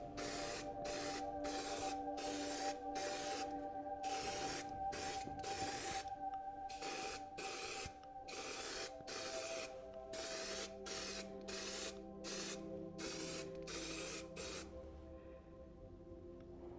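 High-build filler primer being sprayed in many short, quick bursts, about two a second, stopping near the end.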